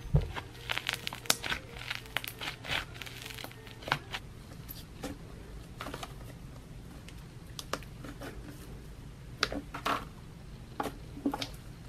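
White butter cloud slime being stretched and pressed by hand, giving a sizzly crackling: dense crackles in the first few seconds, then scattered pops. A room fan hums steadily underneath.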